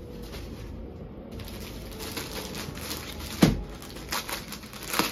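Rustling and crinkling of suit fabric and plastic-wrapped suit packets being handled, with a sharp thump about three and a half seconds in as a packet is set down on the table, and a second, smaller one near the end.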